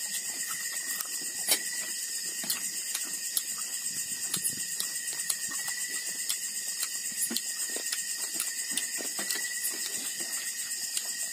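A steady, high-pitched chorus of night insects, with scattered small clicks and knocks of dishes and hands at a meal.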